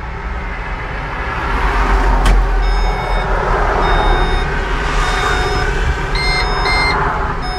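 London bus standing at a stop with its engine idling. From a few seconds in, an electronic warning beep sounds from the cab about once a second, doubling near the end, and there is a single click about two seconds in.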